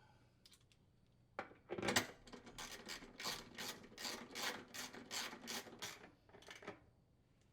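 Socket wrench with a 1/2-inch socket tightening a screw that secures a washer's inner tub to its mounting hub. A knock, then a steady run of short rasping ratchet strokes at about three a second for around four seconds.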